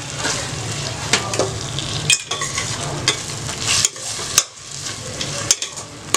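A metal spoon stirring chopped tomatoes into sautéed onions in a stainless steel pot, scraping and clicking against the pot several times over a steady sizzle of hot oil.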